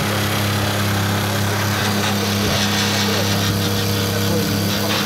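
Steady low electrical hum with a constant drone, from the onboard equipment of an electric commuter train standing at the platform.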